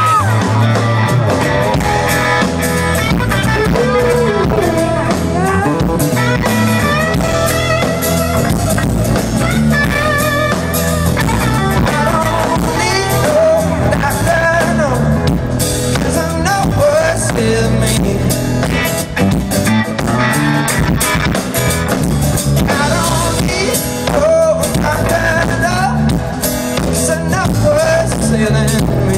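Live band playing a blues-rock song through a PA: amplified electric guitar and drum kit with a singing voice.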